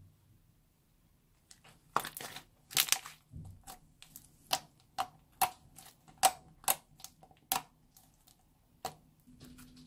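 Transparent slime being squeezed and kneaded by hand, giving a series of sharp pops and clicks, about one every half second, starting about a second and a half in and stopping shortly before the end.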